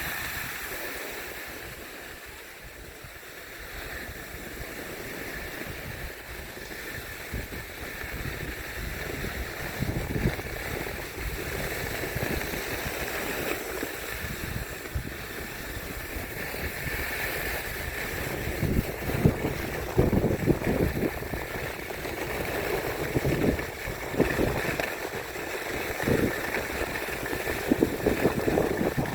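Rushing noise of riding down a ski slope: snow hissing and scraping under the skis or board, with irregular wind buffeting on the microphone that gets stronger in the second half.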